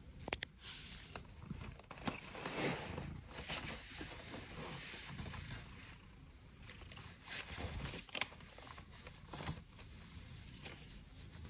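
Soft rustling and scraping as a hand strokes a cat's fur and the cat shifts against a corrugated cardboard scratcher bed, with a few sharp clicks, one near the start and one about eight seconds in.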